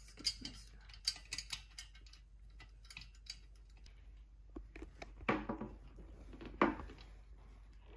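Irregular light clicks and ticks of objects being handled, with two louder scraping, rustling sounds about five and six and a half seconds in.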